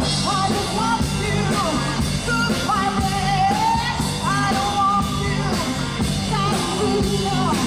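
Rock music with singing over drums and guitar, keeping a steady beat.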